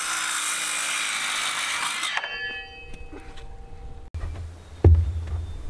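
A cordless circular saw cutting through a wooden board, the cut ending about two seconds in and the blade spinning down with a fading whine. Near the end, a low rumble of wind on the microphone and one sharp thump.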